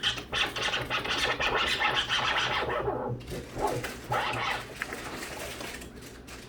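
DJ scratching on a turntable: a fast run of back-and-forth scratches for about three seconds, then a few shorter, separate scratches.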